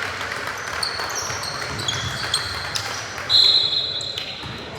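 Basketball players' sneakers squeaking on the court: a string of short, high squeaks, the longest and loudest a little over three seconds in, over a basketball bouncing.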